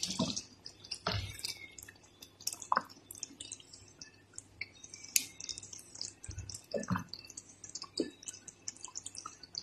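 Thick creamy sauce simmering in a pan, with scattered small bubbling pops and ticks, and a few louder scrapes of a wooden spatula stirring through it.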